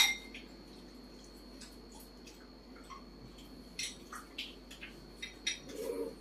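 Spoon clinking against a bowl in scattered light clicks and taps as food is scooped out, with a brief low voice near the end.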